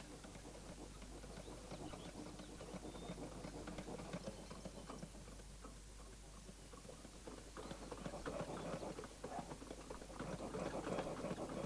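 A hand-pumped bellows forcing air into a charcoal fire, heard as a loose rhythm of knocks and puffs that grows louder in the last few seconds. The fire is being driven hot enough to melt copper in a clay crucible.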